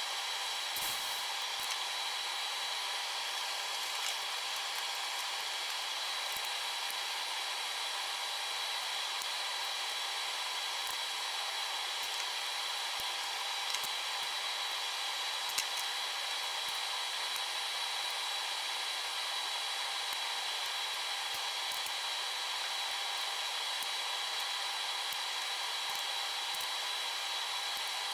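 Steady fan-like whooshing noise with a faint steady whine, unchanging throughout, with a couple of faint clicks around the middle.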